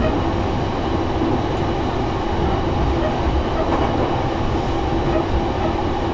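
Cabin running noise of a JR East E233-0 series electric train: a steady rumble of wheels on rail with a faint steady hum.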